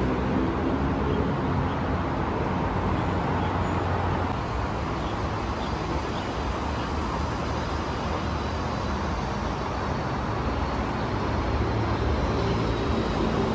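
Steady road traffic noise, with a low drone that is stronger near the start and again near the end.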